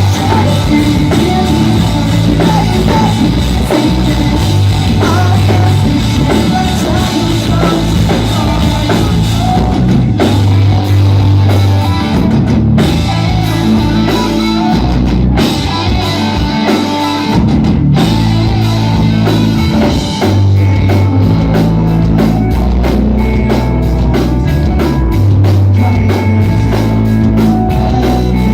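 Pop-punk band playing live: distorted electric guitars and bass over a driving drum kit, with a sung lead vocal.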